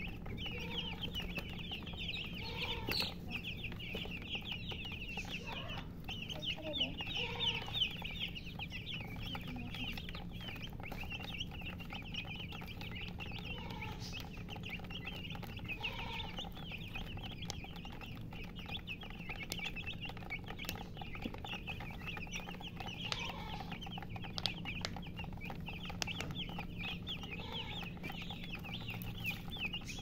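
A group of chicks peeping constantly while they feed: a dense chorus of short, high, falling chirps, with an occasional lower cluck mixed in.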